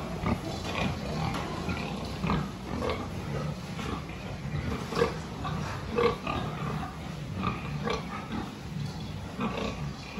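Young pigs grunting in a pen: short grunts scattered irregularly, the loudest about five and six seconds in.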